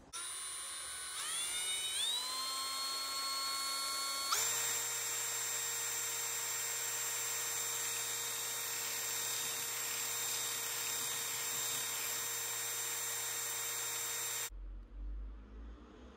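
Electric drill spinning a small mixing paddle in a plastic cup of liquid, a high motor whine. It speeds up in steps over the first few seconds, jumps to a higher steady speed about four seconds in, runs steadily, and cuts off about a second and a half before the end.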